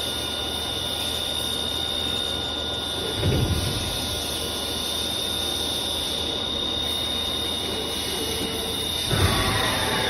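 A CNC machine running with a steady high-pitched whine over a hiss and low hum. A short low thump comes about three seconds in, and a louder, rougher rush begins near the end.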